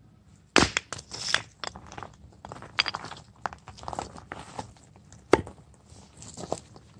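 Handling noises: scattered clicks and knocks mixed with crinkling and rustling, with sharp knocks about half a second in and about five seconds in.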